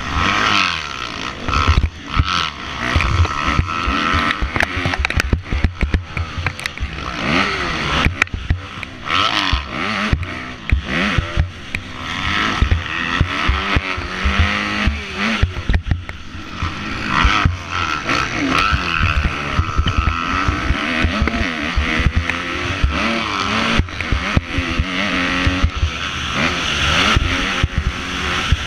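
Motocross dirt bike engine revving up and down as the rider accelerates, shifts and backs off around the track, heard through a helmet-mounted camera. There are frequent thumps and wind noise on the microphone.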